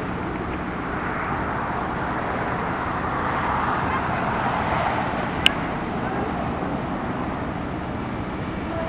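Steady vehicle noise, with a single sharp click about five and a half seconds in.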